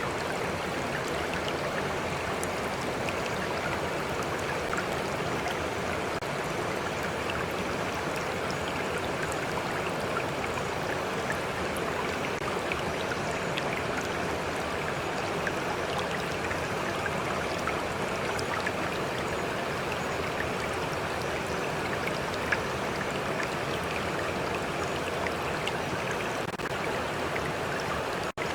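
A stream flowing steadily, with small drips and splashes of water lapping close by. The sound cuts out for an instant near the end.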